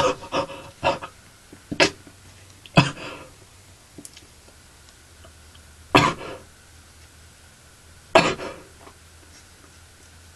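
A teenage boy with a cold making short coughing, throat-clearing noises while trying to force a sneeze that does not come. There are five in quick succession in the first three seconds, then two more a few seconds apart.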